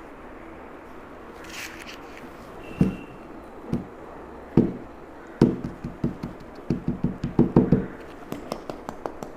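Hands pressing and patting kinetic sand into small plastic molds: a string of dull taps and knocks that come thicker about five seconds in, then lighter clicks near the end.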